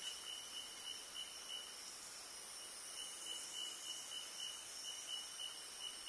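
Rainforest insects trilling in a steady chorus: a high, rapidly pulsing buzz with a fainter, higher hiss above it.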